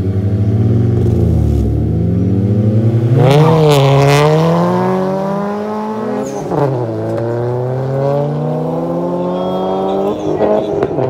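Two cars, a BMW 3 Series sedan and a Dodge Caliber, launch together from a standing start and accelerate hard side by side. Their engines climb in pitch through the gears, with upshifts about three, six and a half and ten seconds in.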